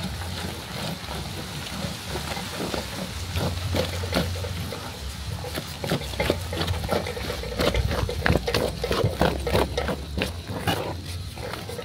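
Thick rice and millet fufu being stirred and turned in a pot: wet, sticky squelches mixed with irregular knocks of the utensil against the pot, ready-cooked and stiff.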